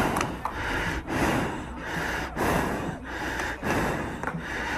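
Heavy, rapid breathing close to the microphone, a noisy in-and-out breath about every second.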